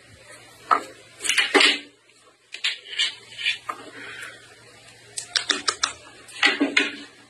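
Short sharp clicks and clattering, with a quick run of about six clicks around five seconds in and louder clusters just over a second in and near the end.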